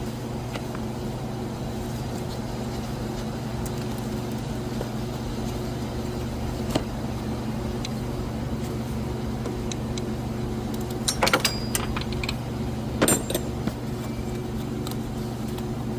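A few sharp metallic clinks and clanks from hand tools working the serpentine belt off the engine's pulleys: one at about seven seconds, then louder clusters around eleven and thirteen seconds in. They sit over a steady low hum.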